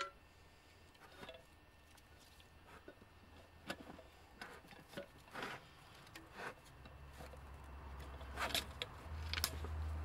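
Gloved hands working at a rear drum brake's backing plate and shoe hardware, making scattered small metallic clicks and scrapes. A low rumble builds in the second half.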